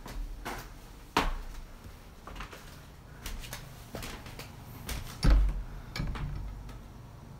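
A wooden door being handled and opened, with scattered knocks and latch clicks. A heavy thump a little past five seconds in is the loudest sound.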